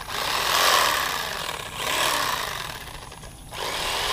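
Corded electric fillet knife buzzing as it cuts the belly meat from a catfish. It runs in spells and drops out briefly about three seconds in.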